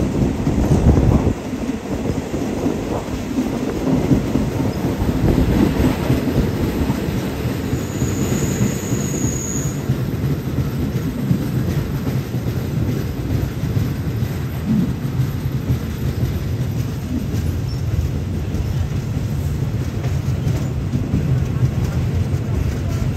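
Railway passenger carriage running along the track, heard from on board: a steady, loud rumble of wheels on rails, with a brief high wheel squeal about eight seconds in.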